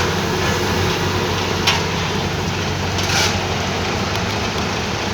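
Road-construction machinery's engine running steadily, with a couple of brief sharp knocks about a second and a half and three seconds in.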